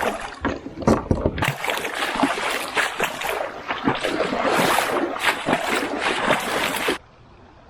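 Water splashing and sloshing close by around the kayak, a dense run of sharp splashes that cuts off abruptly about seven seconds in.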